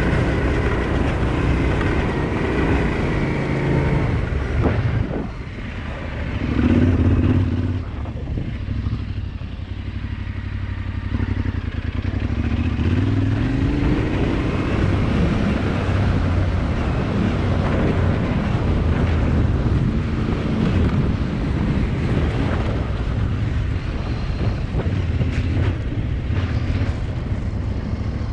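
Off-road motorbike engine running under way on a dirt track, its revs rising and falling with the throttle. The engine eases off about five seconds in, then comes a short, loud burst of throttle a second or so later.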